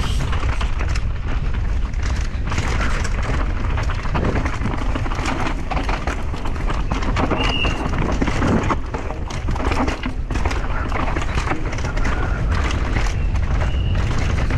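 Downhill mountain bike ridden over rough trail: heavy wind buffeting on the microphone, with the bike knocking and rattling continuously and a couple of brief high squeals.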